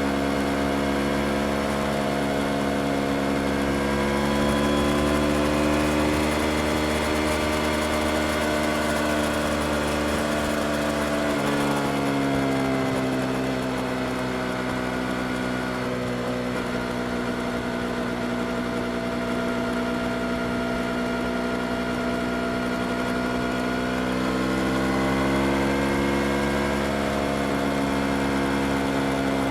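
Yamaha R25's 249 cc parallel-twin engine running at low, even revs, its note rising and easing back gently a few times with small throttle changes.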